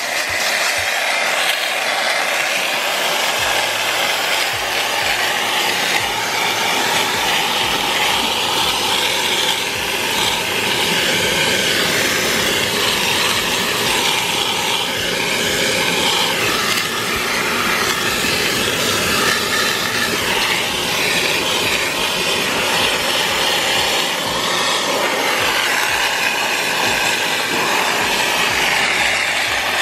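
Vacuum cleaner running steadily at full suction, its crevice nozzle drawn over truck floor carpet with a rubbing, scraping hiss.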